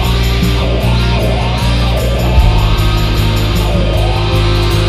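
Loud rock music with guitar over a heavy bass line, changing notes every second or so.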